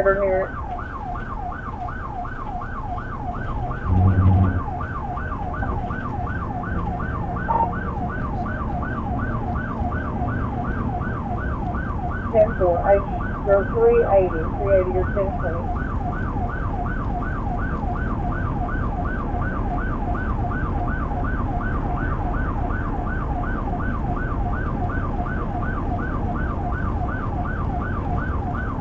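Police car siren in yelp mode, a fast rising-and-falling wail about three times a second, over steady road and engine noise from the pursuing car. A short low tone sounds about four seconds in.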